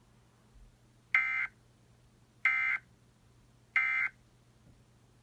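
Emergency Alert System end-of-message signal: three short bursts of SAME digital data tones, each about a third of a second long and spaced just over a second apart, marking the end of the alert broadcast.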